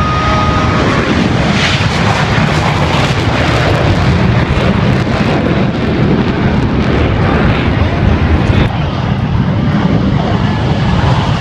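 Blue Angels F/A-18 Hornet jets flying low over the airfield, their jet engines making a loud, continuous rumbling roar.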